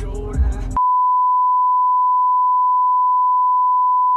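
Steady pure 1 kHz censor beep, one unbroken tone, cutting in abruptly just under a second in to replace copyrighted music playing in the car.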